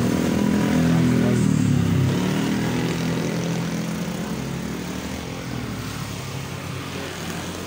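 A passing motor vehicle's engine, loudest in the first couple of seconds and then fading away.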